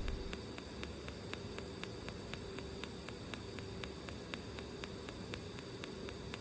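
Pulsed TIG welding arc on stainless steel: a steady hiss and hum with a sharp tick about four times a second from the current pulsing.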